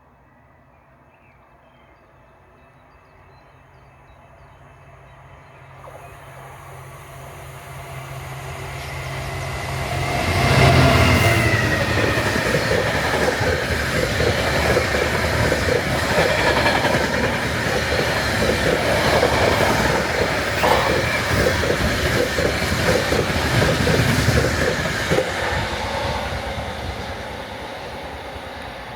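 DB Class 66 diesel freight locomotive approaching and passing, loudest about ten seconds in with a falling tone as it goes by. Its wagons follow with a long rumble and rhythmic wheel clatter over the rail joints, which fades near the end.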